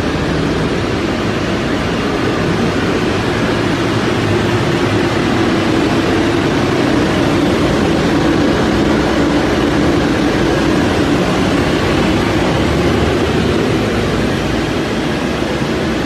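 Burner of a large horizontal steam boiler firing: a loud, steady rush of fan and flame with a low hum running through it, a little stronger about halfway through.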